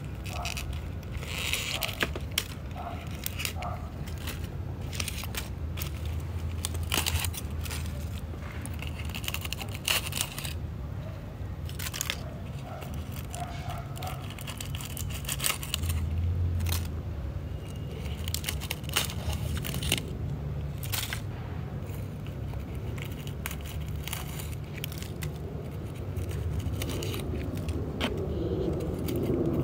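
Dry, withered succulent leaves crackling, snapping and tearing as they are stripped off by hand, in many irregular small clicks and rustles over a low steady hum.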